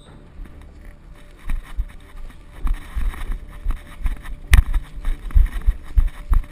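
Footsteps and the jostling of a body-worn camera as its wearer walks a rocky trail, a run of dull low thumps a couple of times a second, with one sharp click about four and a half seconds in.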